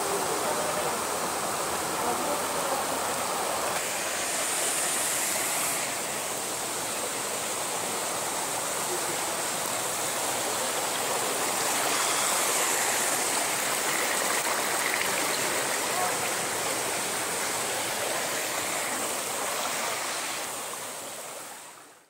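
Waterfall and the stream below it, a steady rush of white water over rocks that fades out near the end.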